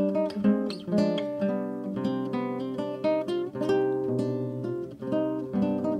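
Background instrumental music: a quick run of short notes that start sharply and die away.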